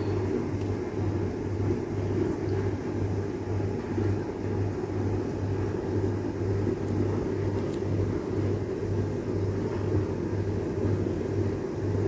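Steady low mechanical hum and rumble, with a low drone that pulses about twice a second.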